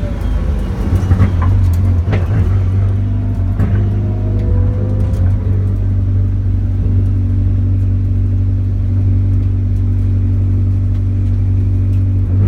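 Car engine running at a steady speed, a deep even drone, with a few clicks and knocks in the first few seconds.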